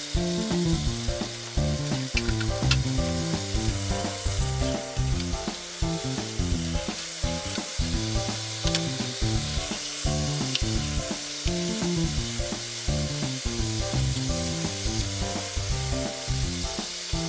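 Pig trotters bubbling and sizzling in dark soy sauce in a frying pan as the sauce simmers down, with a few light clicks of chopsticks against the pan as they are turned. Soft background music plays underneath.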